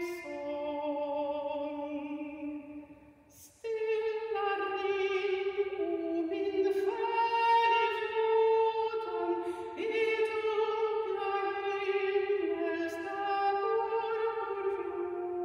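A woman singing solo, holding long notes with vibrato, with a short pause for breath about three seconds in.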